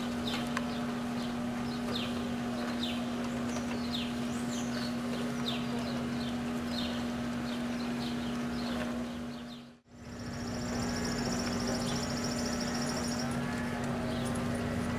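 Mallard ducklings peeping: a string of short falling chirps, several a second at times, over a steady low hum. The sound drops out briefly about ten seconds in.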